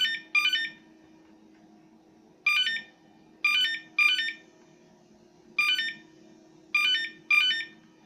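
A computer system speaker, driven as a buzzer by an Arduino through a transistor, beeps as a water-leak alarm triggered by moisture bridging the sensor contacts. It gives short, loud, high-pitched beeps: a quick pair at the start, then single and paired beeps at uneven gaps of about a second.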